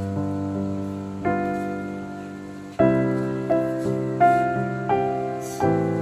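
Background music: slow, gentle piano chords, a new chord struck about every second and left ringing to fade.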